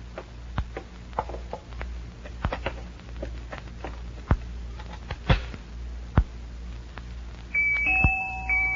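A few scattered clicks and soft knocks over a low steady hum. About seven and a half seconds in, a music box starts playing a tinkling tune of high plinked notes.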